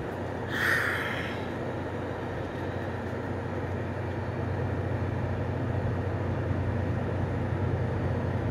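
Steady low hum of glass-door refrigerated display coolers in a store, with a short higher-pitched sound just under a second in.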